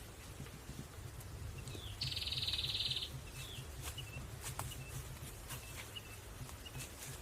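Outdoor animal calls: a high, buzzy trill about two seconds in that lasts about a second, followed by short high chirps, with scattered sharp clicks over a low steady hum.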